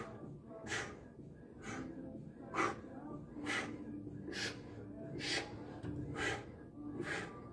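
A man breathing hard in time with cable pushdown reps: about nine short, noisy breaths, a little under a second apart. Faint background music with a held note sits underneath.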